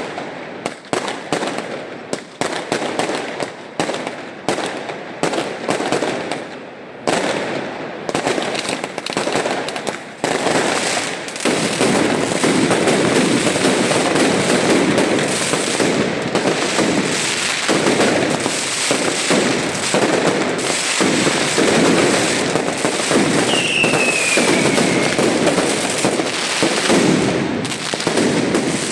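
Fireworks going off in quick succession: a string of sharp bangs and cracks that, about a third of the way in, merges into a continuous dense crackling barrage. One short falling whistle cuts through it near the end.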